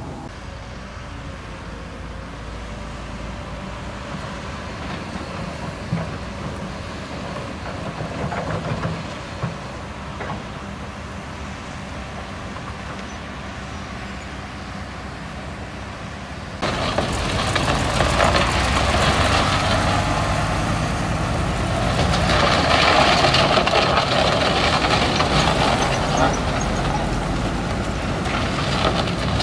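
Heavy diesel earthmoving machinery running: a Kobelco SK200 crawler excavator working beside a dump truck. A steady engine rumble with a few knocks gets suddenly louder and more hissing about halfway through.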